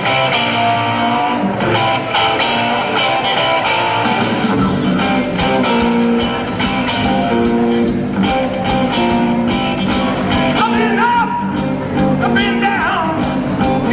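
Live rock band playing, with electric guitar, bass, drums and keyboards. The bass and drums come in fuller about four seconds in.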